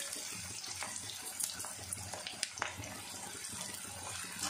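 Sliced onions sizzling as they fry in oil in a steel kadai. They are being browned, and there are light scrapes and taps of the wire skimmer against the pan several times.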